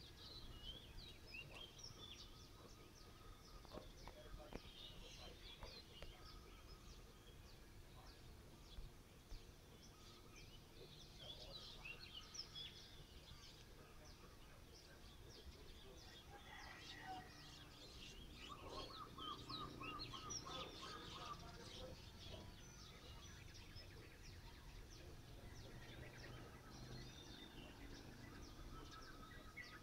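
Faint outdoor background of small birds chirping and twittering, with a short run of rapidly repeated notes about two-thirds of the way through, over a low steady hum.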